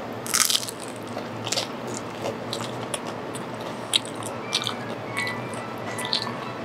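A bite into a slice of crisp thin-crust pizza, the crust crunching loudly about half a second in, then chewing with scattered softer crunches.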